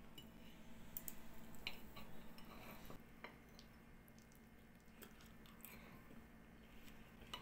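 Faint clicks and scrapes of a table knife and fork against a ceramic plate while a stuffed pork steak is cut, over a steady low hum.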